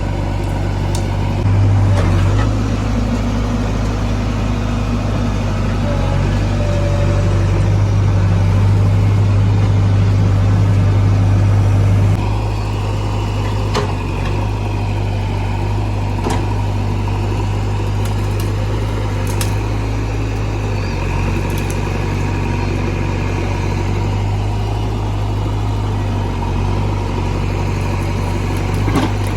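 JCB 3DX Super backhoe loader's diesel engine running steadily. It grows louder and heavier about two seconds in and eases back about twelve seconds in. A few light knocks sound over it.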